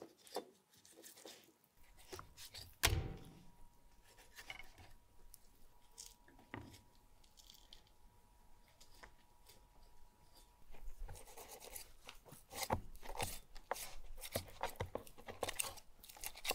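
Knives slicing and trimming raw beef on wooden cutting boards: irregular cutting and scraping strokes with light taps of the blade on the wood. One heavier thump about three seconds in, and quicker, denser cutting strokes over the last few seconds.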